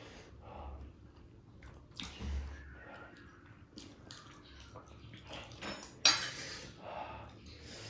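Cutlery clinking and scraping against dishes during a meal, in scattered light knocks, with a louder sharp clatter about six seconds in.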